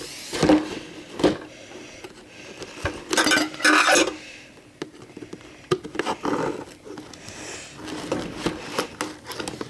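A knife scraping and sawing at stiff plastic packaging in irregular strokes, with scattered clicks and a cluster of louder rasps about three to four seconds in.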